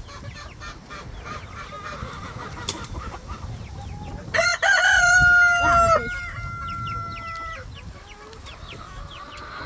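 A flock of chickens clucking steadily, with a rooster crowing loudly about four seconds in, a cock-a-doodle-doo whose last note is held for about three seconds.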